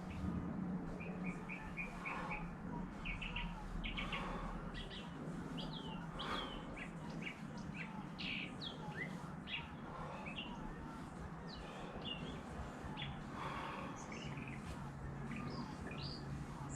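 Small birds chirping, with many short high chirps scattered irregularly throughout.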